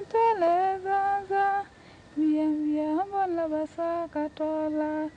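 A woman singing a slow melody of held notes that slide into one another, with a brief pause about two seconds in and a few shorter notes near the end.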